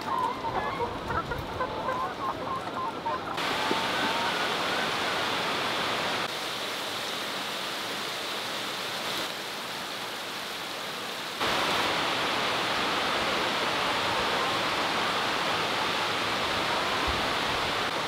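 A large flock of caged brown laying hens clucking and calling over a steady rushing noise. The noise changes level abruptly a few times.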